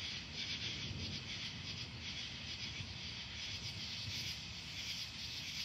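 Night chorus of crickets trilling steadily, over a faint, uneven low rumble.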